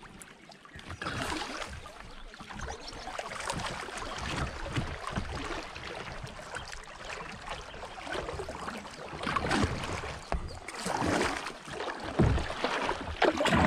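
Kayak paddle dipping into moving river water in a steady run of strokes, each a short splash and swish.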